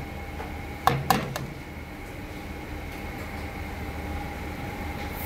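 Three quick taps of a utensil against a metal pan about a second in, then a steady background machine hum with a faint high whine.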